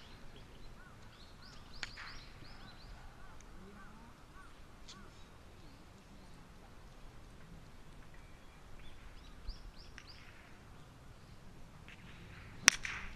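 Birds calling in short repeated chirps, then near the end one sharp crack: a park golf club striking the ball.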